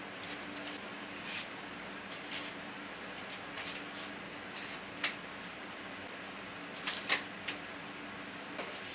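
A few scattered light knocks and scrapes as hands work at a stripped wooden kitchen base cabinet, over a steady low hum.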